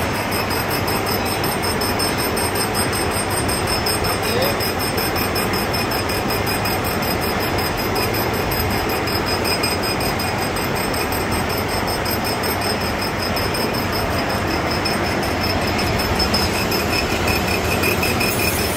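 Toolpost grinder mounted on a lathe grinding a large rotating steel roll: a steady grinding hiss over the running lathe and grinder motor, with steady high whining tones that pulse rapidly.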